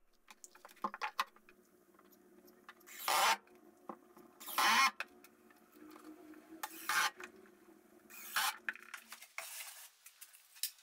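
Wooden panels being fitted inside a wooden crate: about five short scrapes of wood rubbing on wood, with light knocks and clicks between them, over a faint steady hum.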